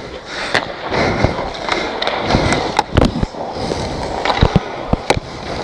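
Ice skates scraping and carving on rink ice, heard from inside a goalie's mask, with several sharp knocks of hockey gear during warm-up shots.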